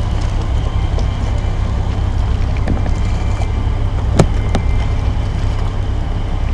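Steady low rumble of a small boat's engine, heard from on board while cruising, with a sharp click a little past four seconds in and a couple of fainter knocks around it.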